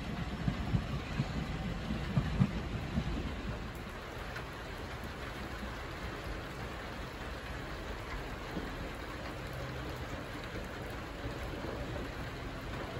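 Steady hiss of rain. For the first three seconds a train's low rumble and wheel clatter on the rails lies under it, then fades.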